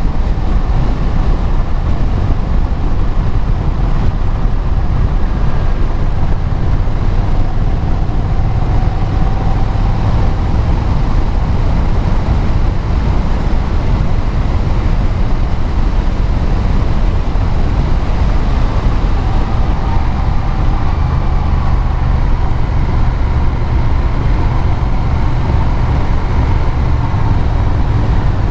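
Engine and road noise of a vehicle under way at a steady cruise: a continuous low rumble, with the engine note drifting gently up and down.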